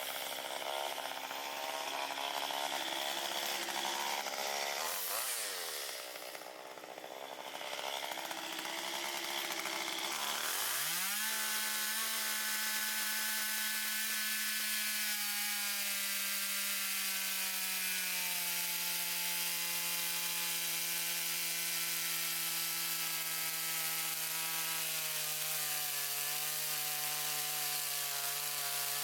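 Chainsaw running and cutting wood. About five seconds in the revs drop and come back up. At about ten seconds it revs up hard and holds high speed, its pitch sagging slowly as the chain works through the wood.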